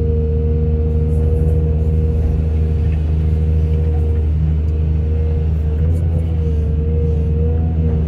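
Heavy diesel machinery running steadily with a deep drone, a higher whine wavering up and down in pitch partway through as the load changes.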